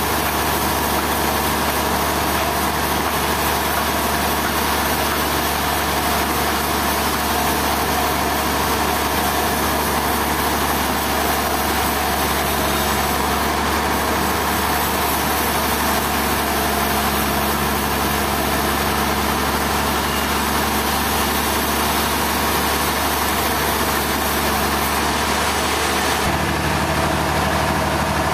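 Engine running steadily at an even speed, its tone shifting slightly near the end.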